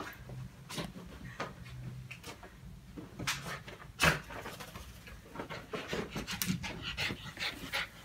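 Small dog panting and scuffling about on a sleeping bag, with irregular short rustles of the fabric and one sharp knock about four seconds in.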